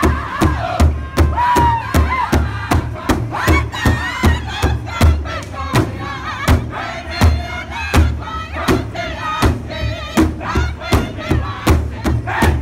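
Powwow drum group singing in a high-pitched chorus of many male voices over a large shared hand drum, struck in unison with drumsticks in an even beat of about three strokes a second.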